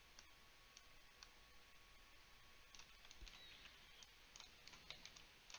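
Near silence with faint clicking from a computer mouse and keyboard. There are a few isolated clicks at first, and they come more often from about three seconds in.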